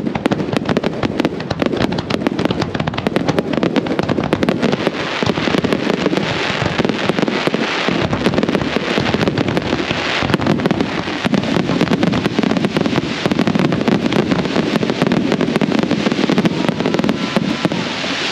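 Fireworks display firing a rapid barrage of aerial shells: dense, overlapping bangs many times a second with no let-up.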